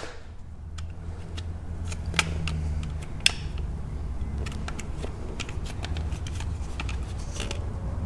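Small screwdriver prying the plastic retaining teeth of a Ford Edge rear window switch out of its door-trim bezel: scattered light plastic clicks and scrapes, with one sharper click about three seconds in.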